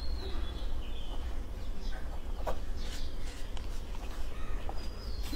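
Faint bird chirps and short calls over a steady low hum, with a few soft scratches of a pen writing on paper.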